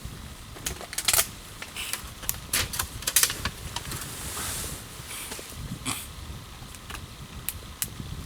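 Wood fire crackling: irregular sharp pops and snaps of burning wood, with a brief hiss about four seconds in.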